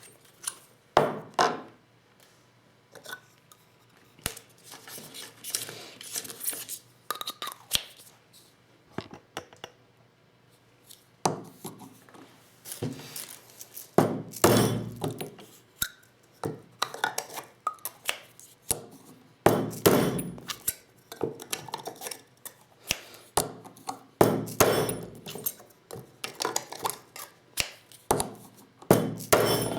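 Repeated sharp knocks and clinks at an uneven pace: 12-gauge hulls being decapped with a Lee Loader, the decapping rod tapped to punch out spent primers, with the metal tool parts and hulls clinking as they are handled. The loudest knocks cluster in a few groups, with near-quiet gaps between.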